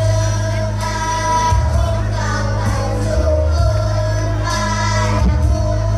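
Children's choir singing in long held notes over an accompaniment with a steady bass line.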